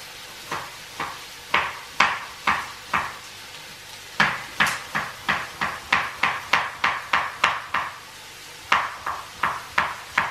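Kitchen knife slicing a carrot on a cutting board, each cut a sharp knock of the blade on the board. A few slow cuts, then a quicker run of about three a second, a short pause, and more cuts near the end.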